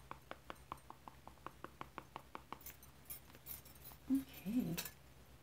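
Oil pastel stick tapped rapidly on paper, about six light taps a second, stopping about two and a half seconds in. A few scraping strokes follow, then a couple of soft knocks near the end.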